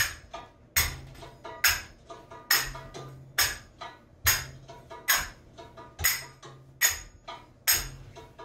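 Finger cymbals (zills) struck on the beat, a bright ringing clang a little more than once a second, over a recorded Arabic drum track in the masmudi saghayir rhythm with deep low drum strokes and lighter taps between.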